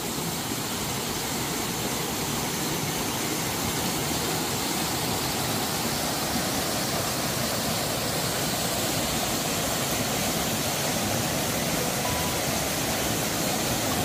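Mountain waterfall in heavy flow: a steady, even rush of falling water.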